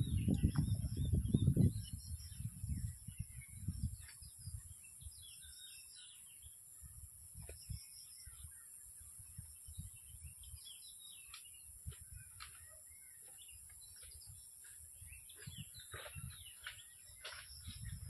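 Small birds chirping and calling here and there over a steady outdoor background. A low rumble is loudest in the first two seconds, then fades.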